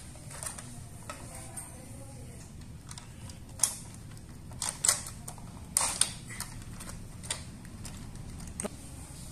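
Hard plastic toy parts clicking and knocking as a Playmobil boat trailer's drawbar is fitted onto a Playmobil police truck's tow hitch. Scattered sharp clicks, the loudest about three and a half seconds in and a cluster around five to six seconds.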